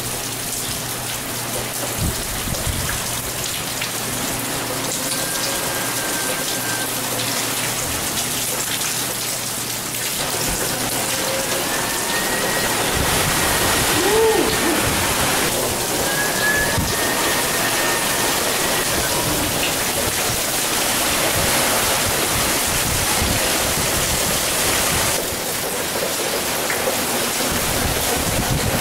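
Hurricane-band wind and rain: a steady, loud rush of wind-driven rain and gusts tossing palm fronds. A faint high whistle comes and goes in the middle.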